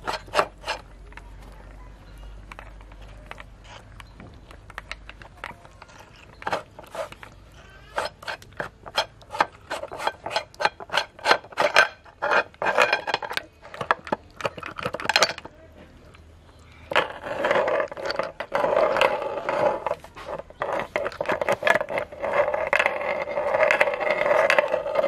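Cast-metal meat grinder clogged with tomato: a long run of sharp metal clicks and clinks with wet squishing as its end ring and cutting plate are worked off. About two-thirds of the way in it gives way to a louder, continuous wet grinding and squelching as tomato pulp is forced out of the open barrel.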